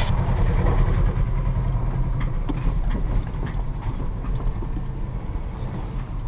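Vehicle engine and tyres on a dirt road, heard from inside the cabin: a steady low rumble with a few light knocks, easing slightly about halfway through.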